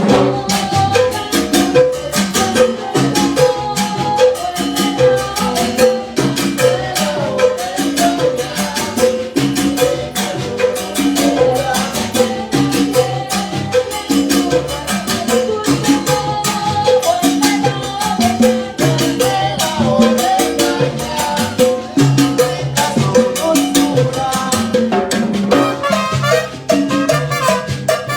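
Salsa band playing live during a sound check, with a steady percussion rhythm over a repeating bass line.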